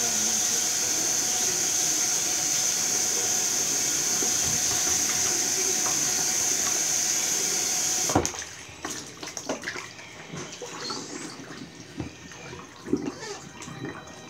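Bathroom sink tap running, the water splashing over hands and a plastic tub being washed in the stream. About eight seconds in, the rush of water drops away suddenly, leaving quieter knocks and clatter of the plastic tub being handled in the wet sink.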